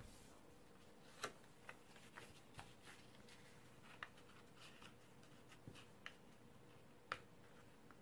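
Faint crinkles and short crisp clicks of a square of origami paper being folded and pressed flat by hand on a table, scattered irregularly, the sharpest about a second in and about seven seconds in.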